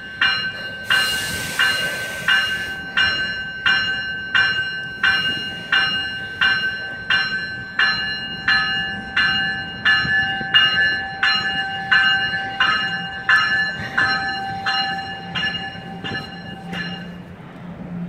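NJ Transit Multilevel cab car's warning bell ringing in a steady rhythm, a little under two strikes a second, stopping near the end. A short hiss sounds about a second in.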